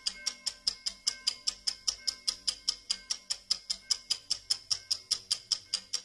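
Clock ticking quickly and evenly, about five sharp ticks a second. A faint ringing tone dies away in the first second.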